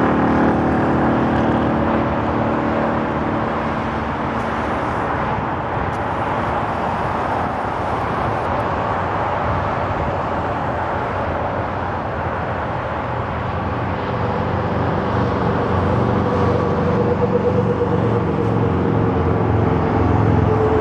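Steady rush of highway traffic, with a low engine drone that is stronger at the start and again over the last few seconds.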